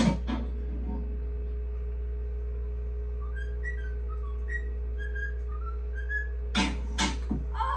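A cockatiel whistling a string of short, bird-like notes, played back through a TV. Near the end come two short, sharp noisy bursts.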